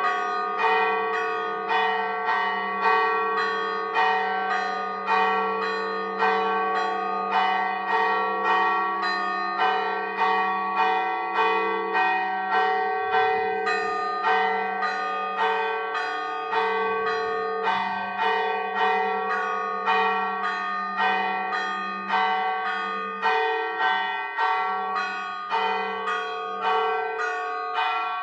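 Church bells rung in a volteo, swung full circle and striking steadily about one and a half times a second, each strike ringing on into the next: the first volteo calling to Mass.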